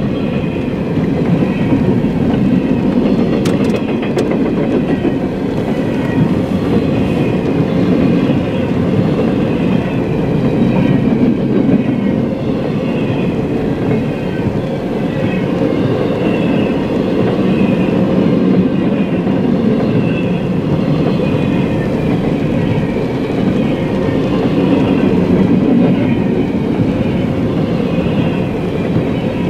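CSX double-stack intermodal train rolling past a grade crossing, its container cars making a steady noise of steel wheels on rail with a few clicks, heard from inside a car.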